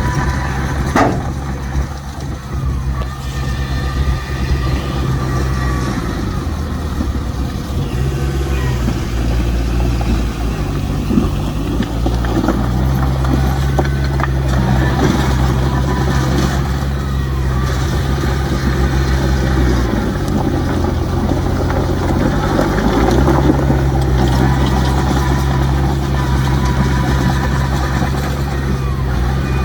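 Heavy diesel engine of earthmoving machinery running, its engine speed dipping and recovering twice, with a few brief knocks.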